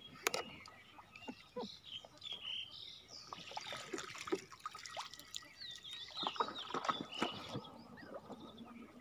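Floodwater splashing and dripping as a bamboo pole is worked beside a banana-trunk raft, in many short irregular splashes, with birds chirping now and then.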